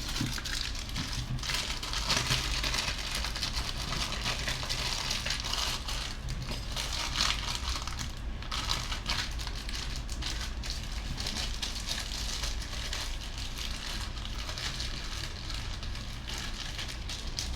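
Continuous crackling and rustling with many small clicks, over a low hum.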